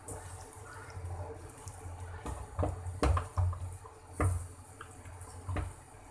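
Wet squishing of spiced eggplant pieces and small fish being mixed together by hand in a cooking pan, with a few sharp knocks against the pan.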